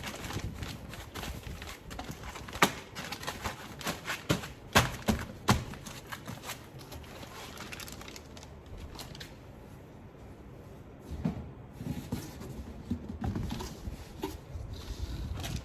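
A run of sharp clicks and knocks, loudest and most frequent in the first half, then a quieter stretch, then more scattered knocks near the end.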